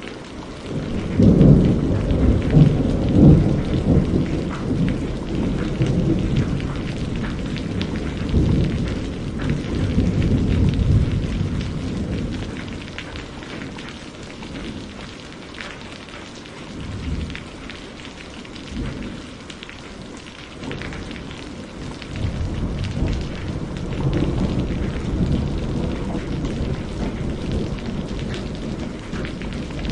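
Steady rain with rolling thunder: a long low rumble swells about a second in and dies away toward the middle, and another builds in the last third.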